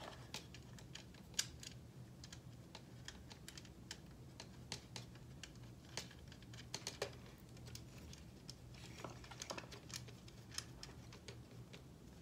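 Faint, irregular small clicks and ticks of metal nuts being threaded by hand onto the ends of threaded rods against a 3D-printed plastic frame, with a faint steady low hum underneath.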